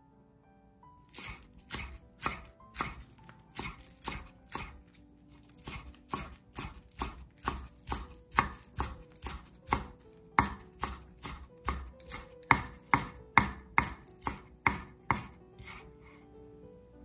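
Kitchen knife chopping green onions on a wooden cutting board: a steady run of knife strikes against the board, about two to three a second, starting about a second in and stopping near the end.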